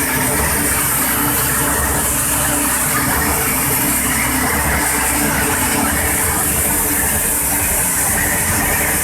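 SMT pick-and-place machine running during its initialization: a steady machine whir with a strong hiss.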